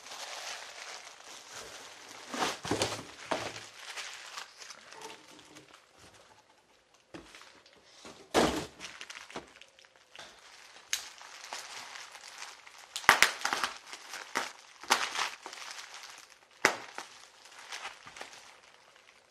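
Bubble wrap rustling and crinkling irregularly while a wrapped telescope tube is handled and lifted out of a cardboard box, with several sharp knocks and clicks.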